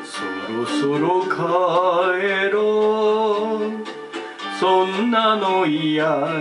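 Karaoke backing track of a Shōwa-era kayōkyoku duet, with a voice singing along and holding long notes with vibrato, about a second in and again near the end.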